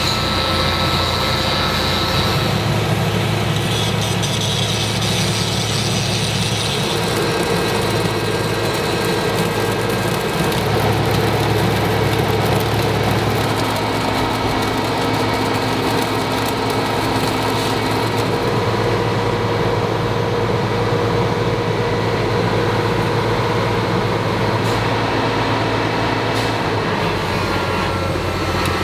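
Heavy railway maintenance machinery running steadily, a continuous loud engine hum with several held tones whose low pitch shifts a few times.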